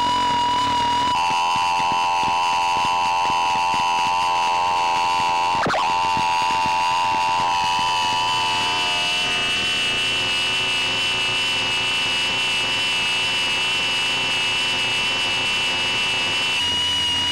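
Maximal Drone synthesizer sounding a dense electronic drone of held high tones with a slight wobble. The layers shift about a second in, a quick pitch sweep cuts through at about six seconds, and the lower tone fades out a few seconds later, leaving the higher tone droning on.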